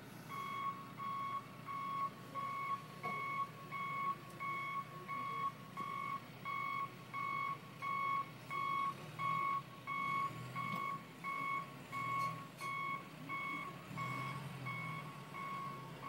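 A heavy vehicle's backup alarm beeping steadily, about one and a half beeps a second, at one pitch. An engine runs underneath and grows louder in the second half.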